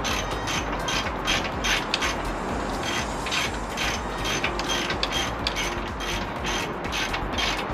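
Ratchet wrench clicking in quick repeated strokes, about four a second.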